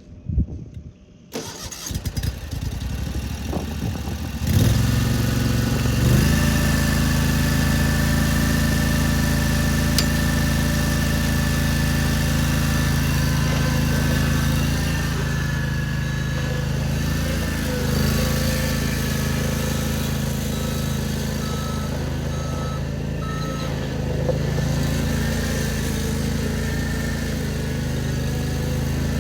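Bobcat ZT 219 zero-turn mower's gas engine starting about four seconds in, then running steadily.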